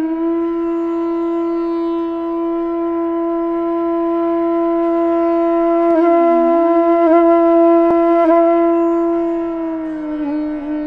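Background music: a wind instrument holds one long note, dipping down in pitch and back about six seconds in, with small ornamental flicks after, then easing a little lower and softening near the end.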